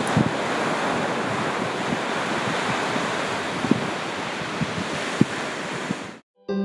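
Ocean surf breaking steadily, with wind buffeting the microphone in low thumps. It cuts off suddenly near the end.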